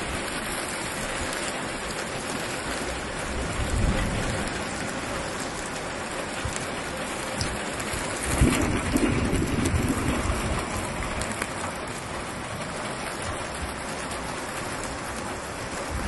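Heavy rain pouring down in a steady, dense hiss, with low rumbles swelling up about four seconds in and again around eight to ten seconds in.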